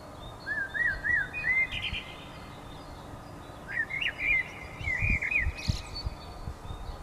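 A thrush singing two fluty, warbling phrases, the first about half a second in and the second from about four seconds in, with faint chirps of other birds behind. A few low thumps come near the end.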